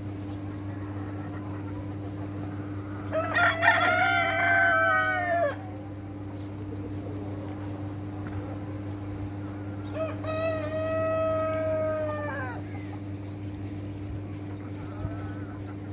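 A rooster crowing twice, one long crow about three seconds in and another about ten seconds in, each falling away at the end, over a steady low hum.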